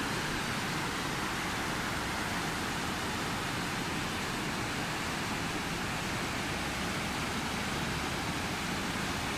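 Fast-flowing river rushing over rocky rapids: a steady, even rush of water.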